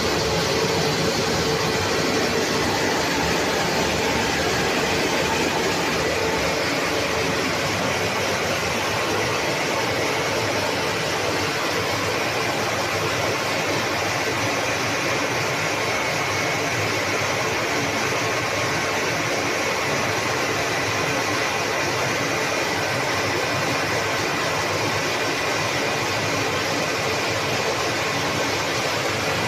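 Industrial steam boiler plant running: a loud, steady machinery noise with a faint constant hum, holding unchanged throughout.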